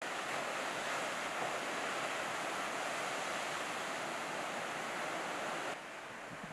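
Steady wash of ocean surf with wind, with no distinct breaks or voices. It drops abruptly to a lower, quieter wash near the end.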